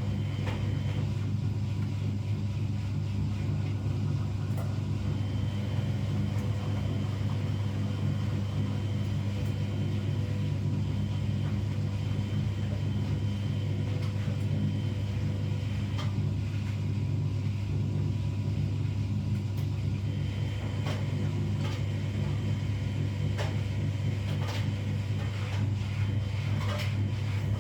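Washing machine running with a steady, deep hum and rumble that holds at one pitch, with a few light clicks and rattles near the end.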